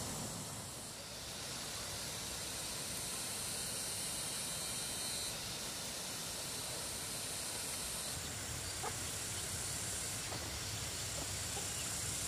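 A steady high-pitched hiss that grows and fades in strength every few seconds, with a couple of faint clicks.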